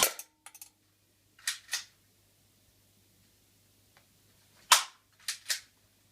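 Spring-powered P230 airsoft pistol firing two sharp shots about four and a half seconds apart. Each shot is followed shortly by a pair of softer clicks as the slide is pulled back and let go to cock it for the next shot.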